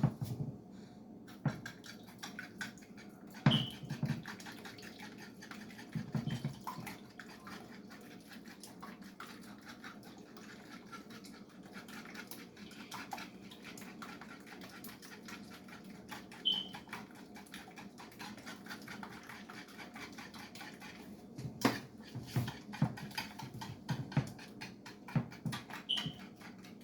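Three raw eggs being beaten by hand in a bowl: a fast, continuous run of light clicking strokes of the utensil against the bowl, with a few louder knocks.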